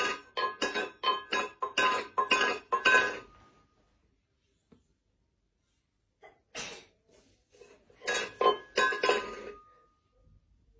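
Light metallic chiming, quick irregular strikes ringing at the same few pitches, in two bursts with a pause of about three seconds between.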